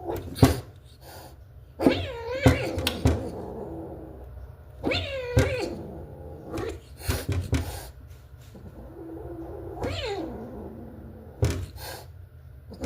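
A cat meowing and yowling in long drawn-out calls that fall in pitch, three of them about two, five and ten seconds in, with sharp knocks in between.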